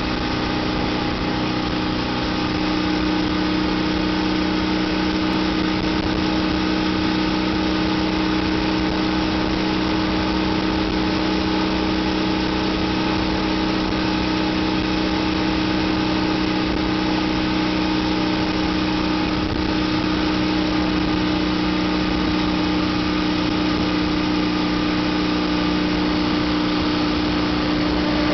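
A 2008 Ural Ranger motorcycle's air-cooled flat-twin engine droning steadily at a constant motorway cruise. The engine is still being run in, so it is held to about 85 km/h.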